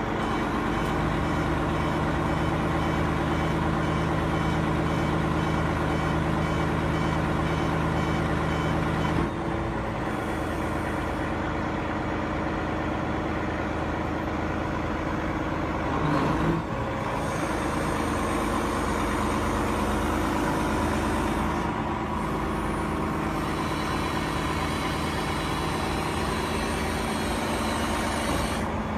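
Caterpillar excavator's diesel engine running steadily, its pitch and note shifting about nine seconds in, with a brief louder surge around sixteen seconds in.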